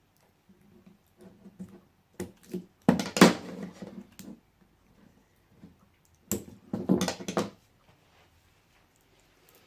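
Laptop battery pack being worked apart by hand: two bouts of cracking and scraping with sharp clicks, about three seconds in and again about six seconds in, with lighter rustling in between.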